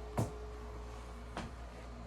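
Two light knocks about a second apart, from the plastic figure and its parts being handled and set down, over a steady low hum.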